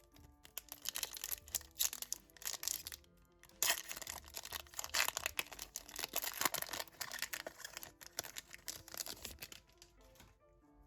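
Pokémon card booster pack packaging crinkling and tearing as it is opened, in crackly spells with a short pause about three seconds in. Background music plays throughout.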